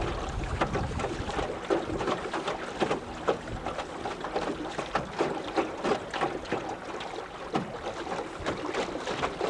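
Small waves slapping against the hull of an aluminum fishing boat: an irregular run of sharp splashes and knocks over a steady wash of water and wind.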